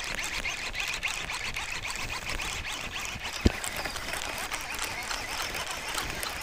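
Tall grass and weeds rustling and brushing as someone moves through them, with one sharp knock about three and a half seconds in.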